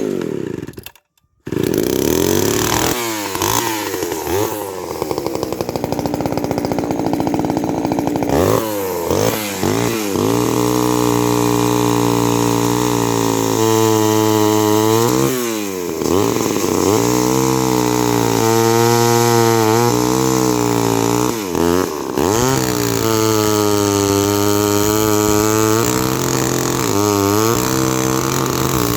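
Homelite XL12 two-stroke chainsaw starting. It fires, cuts out for a moment about a second in, then catches and runs, with the throttle opened and closed again and again so the pitch keeps rising and falling.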